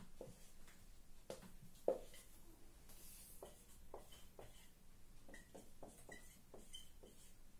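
Marker pen writing on a whiteboard: faint scratchy strokes and small taps, with one sharper tap about two seconds in.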